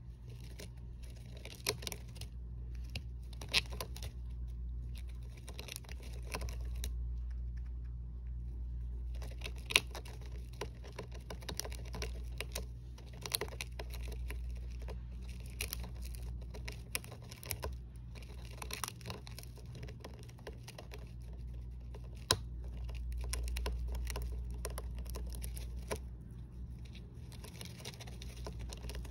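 Hamster moving in wood-shaving and shredded-paper bedding: irregular rustling and crinkling with many small clicks and a few sharper ticks, over a steady low hum.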